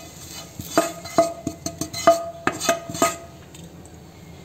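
A metal spoon clinking and scraping against a metal pan, about ten sharp knocks between about one and three seconds in, several leaving a brief ringing tone, as roasted grated coconut is tipped from the pan into the rice flour.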